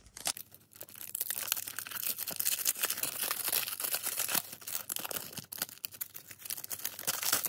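Trading card pack wrapper being ripped open by hand, crackling and crinkling continuously for several seconds with many small clicks.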